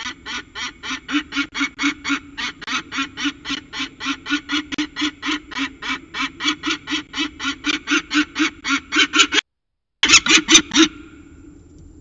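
Juvenile peregrine falcon honking: a loud, fast series of harsh calls at about four a second. After a short break comes a final burst of a few calls, then the calling stops.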